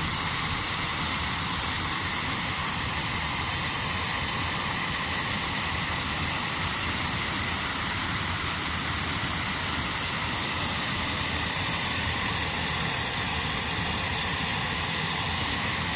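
Small creek waterfall pouring, a steady rushing noise that stays even throughout.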